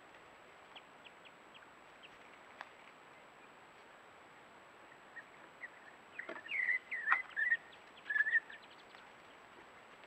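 Mulga parrots calling: a few short, high chips, then a burst of louder chattering calls lasting about three seconds in the second half, with two sharp clicks among them.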